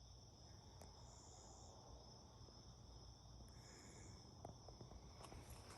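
Faint insects calling in the dark: a steady high trill, with a second, short buzzing call repeating about every two to three seconds.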